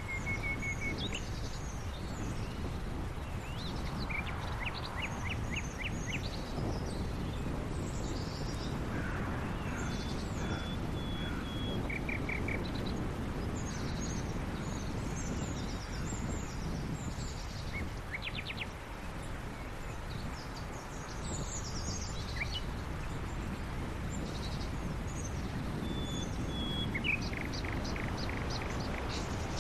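Small birds chirping on and off, with short quick series of notes and scattered high chirps, over a steady low background noise.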